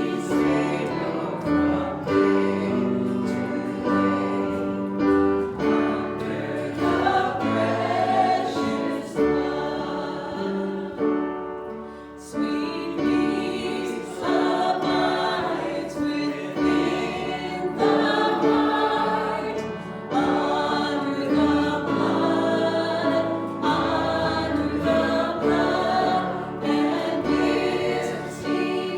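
A group of voices singing a gospel hymn together over held instrumental notes, with a brief lull about twelve seconds in.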